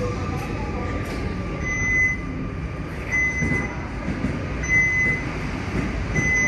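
A high electronic beep, about half a second long, sounding four times at even intervals of about a second and a half, starting about a second and a half in. Under it runs the steady rumble of a train in the underground station.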